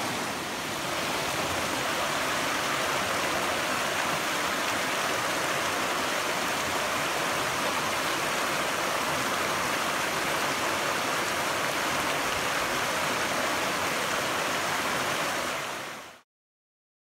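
Rushing water of a shallow, rocky mountain stream running over rapids, a steady hiss that cuts off suddenly near the end.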